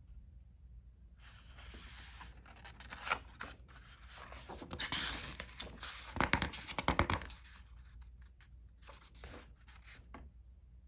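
Paper rustling as a hand slides over a picture book's pages and turns one. It is loudest in a few crisp flaps of the page a little past the middle, with softer rustles near the end.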